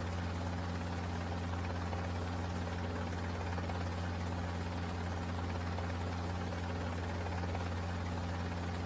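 Cartoon helicopter engine sound effect: a steady, even low drone.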